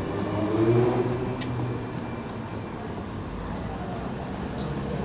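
Cello-like bowed string instrument playing low notes, with a short upward slide about a second in, then thinning into a low, rough rumbling drone.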